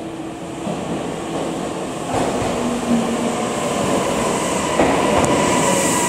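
Tokyu Ikegami Line electric train pulling in along the station platform, growing louder as it nears. Its wheels knock over rail joints a few times, and a steady high whine sets in about four seconds in.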